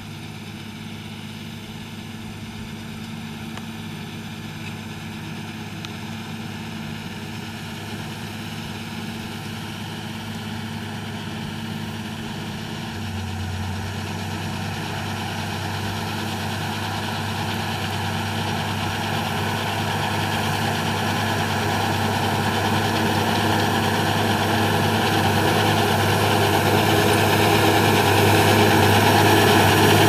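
John Deere 6210R tractor's six-cylinder diesel running under load while pulling a Pöttinger Terradisc 4000 disc harrow through tilled soil. The sound grows steadily louder as the tractor approaches.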